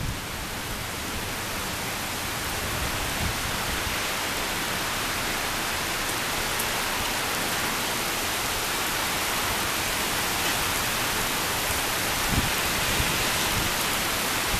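Heavy rain pouring down in a thunderstorm, a steady, even hiss, with a brief low rumble about twelve seconds in.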